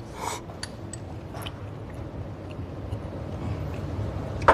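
Quiet table sounds during a meal: a few faint, scattered clicks and clinks over a low steady hum, with a sharper click at the very end.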